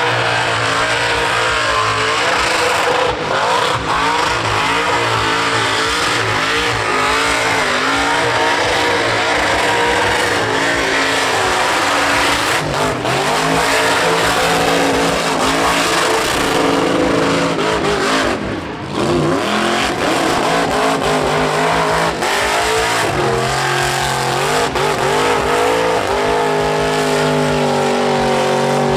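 Burnout car's engine held at high revs, its pitch rising and falling as the throttle is worked, over the hiss and squeal of spinning tyres. The sound dips briefly once, a little past the middle.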